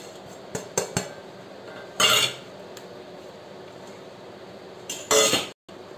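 A small steel bowl clinking and knocking as chopped dark chocolate is tipped out of it onto rolled dough, with a few light clicks early and two louder scrapes about two and five seconds in.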